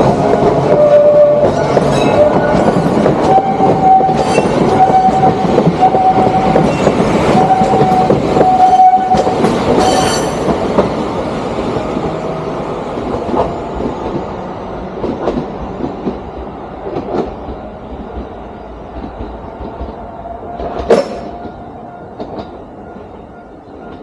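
A Sangi Railway Hokusei Line 762 mm narrow-gauge electric train passes close by, its wheels clacking over the rail joints. A high steady tone comes and goes in short stretches over the first ten seconds. The sound then fades as the train draws away, with a single sharp knock near the end.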